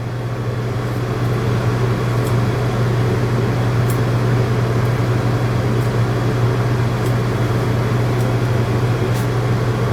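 Steady machine hum with a rush of air, running without a break, with a few faint clicks over it.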